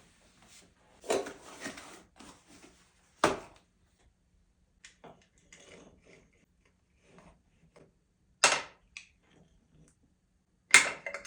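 Sharp knocks and clatter of hard objects being handled: a clattering run early on, single loud knocks about three seconds in and about eight and a half seconds in, and two loud knocks close together near the end.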